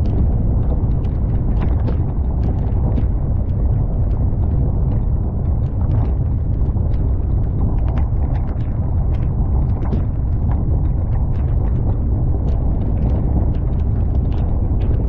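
A vehicle driving along a dirt track, with a steady low rumble of wind buffeting the microphone and many small ticks and crackles of gravel under the tyres.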